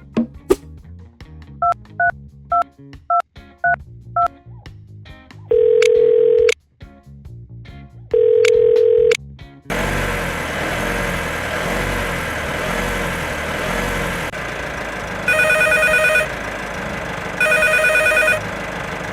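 A cartoon telephone being dialled: a quick run of keypad beeps, then two long steady ringback tones about a second each. A background music bed follows, then a warbling phone ring in two bursts of about a second near the end.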